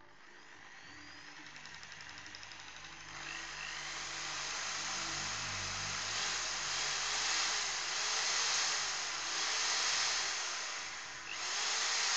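Power-tool motor spinning the drive of a Smiths mechanical tachometer under test, speeding up over the first few seconds and getting louder about three seconds in. It then runs with a whir that swells and fades about once a second.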